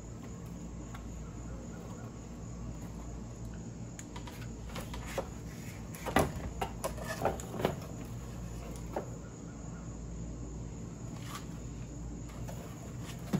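A rifle being pulled out of its cardboard shipping box and packing: rustling, with a few sharp knocks between about four and eight seconds in, the loudest about six seconds in. A steady insect chorus runs underneath.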